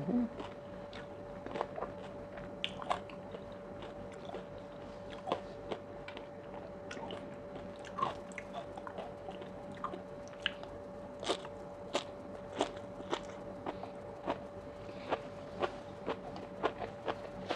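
Close-miked chewing of sea grapes and a spicy oyster salad with crispy fried shallots. Irregular sharp crunches and pops come every second or so over a faint steady hum.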